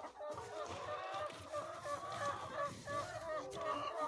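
A flock of hens clucking and calling, many short overlapping calls at once.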